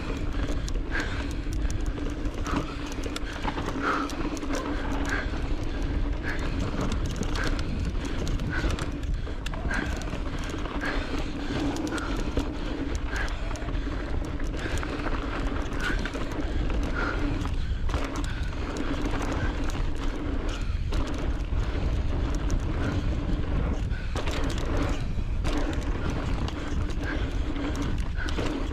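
Electric mountain bike ridden along a dry dirt trail: tyres rolling and crunching over dirt and stones, chain and frame rattling and knocking over bumps, with wind buffeting the microphone. A steady motor hum runs under it and fades about halfway through.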